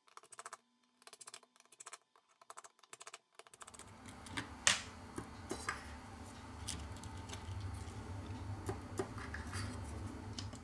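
Soft, scattered clicks of a precision screwdriver working screws out of a phone's internal metal frame. About three and a half seconds in, a low steady hum starts, with a few sharper clicks of parts being handled.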